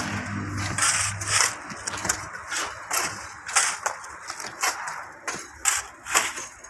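Shovels and pickaxes striking and scraping into soil as a trench is dug by hand: irregular strikes, about two a second.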